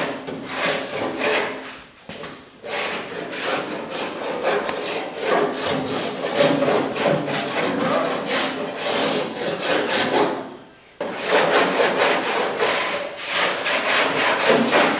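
Surform "cheese grater" body file rasping over Bondo body filler in rapid back-and-forth strokes, shaving the high spots off the filler. The strokes pause briefly about two seconds in and again about ten seconds in.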